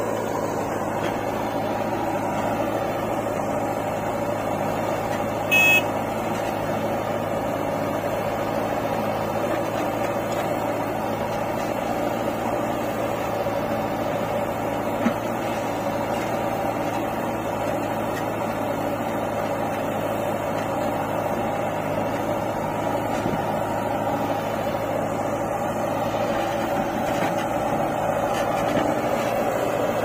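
Diesel engines of a JCB 3DX backhoe loader and a John Deere tractor running steadily, a continuous drone. A short loud blip about five and a half seconds in.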